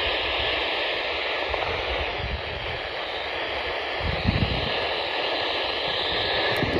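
Steady hiss of radio static from a weather alert receiver, with the warning broadcast's voice lost under the noise; a couple of low thumps a little past four seconds in.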